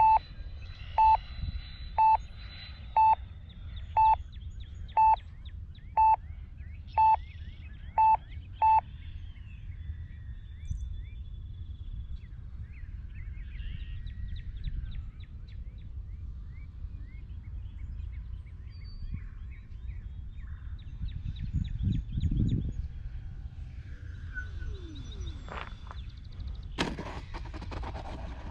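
Electronic beeps from an RC transmitter, about one a second, nine or ten times, then stopping. After them come low wind noise with faint bird chirps, a louder rumble, and a brief noisy burst near the end as the model jet touches down on the runway.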